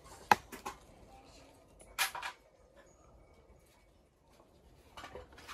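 Short handling noises from a stopped walk-behind tiller: a sharp click about a third of a second in, then a brief rattling clatter at about two seconds. There is no engine running.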